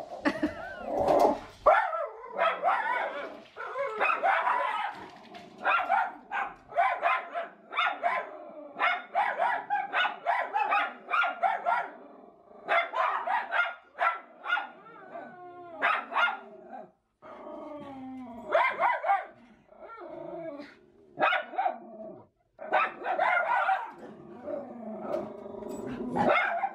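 Several miniature schnauzers barking in frequent, overlapping bursts with a few short lulls, set off by squirrels in the yard outside.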